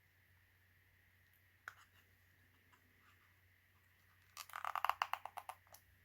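Packaging being handled: a single sharp click, then about a second and a half of crinkling and crackling near the end.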